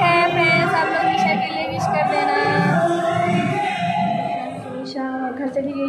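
Background music: a song with a sung vocal holding long notes over an accompaniment.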